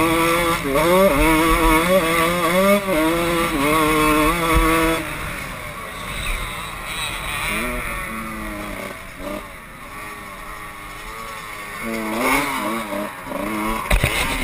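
Kawasaki KX125 two-stroke motocross bike engine under throttle, its pitch climbing and dropping in steps as the rider works through the gears. About five seconds in the throttle closes and the engine falls quieter, then it revs up again near the end.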